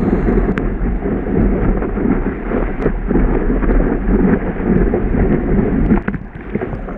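Breaking whitewater and wind rushing over an action camera mounted on the nose of a surfboard riding a wave: a loud, muffled roar with no high end, dipping briefly about six seconds in.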